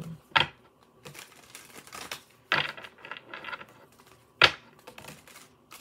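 A deck of tarot cards being shuffled by hand: short bursts of quick papery clicks as the cards slide and slap together, with one sharper snap about three-quarters of the way through.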